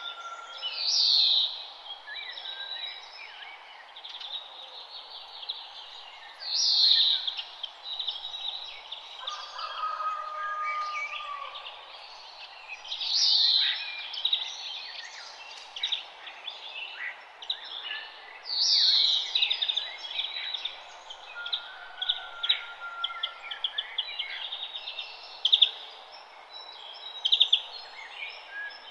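Several songbirds singing and chirping together, with one loud song phrase coming back about every six seconds among quicker chirps and trills.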